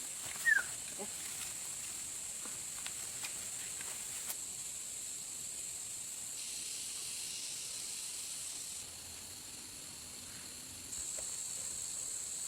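Steady high-pitched insect drone of forest ambience, with one short rising chirp about half a second in.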